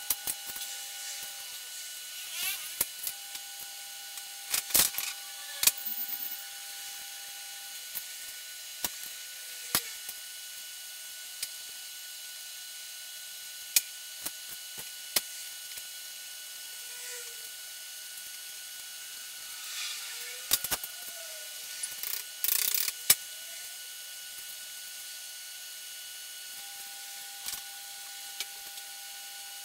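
Hand tools and small metal parts clicking and clinking on a steel diamond-plate bench while an electric motor's casing is put back together, with short runs of ratchet-wrench clicking. The sounds come in scattered clusters, the busiest about twenty seconds in.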